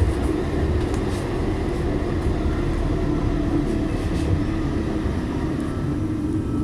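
Tram running, heard from inside the car: a steady rumble of wheels and running gear with a steady low hum.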